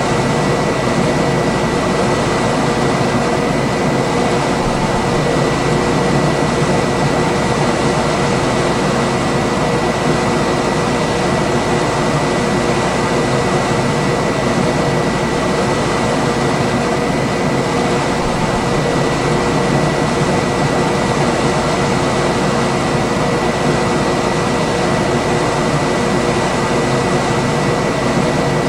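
Room air conditioner running steadily: an even rush of fan air with a faint high tone and a lower hum held throughout.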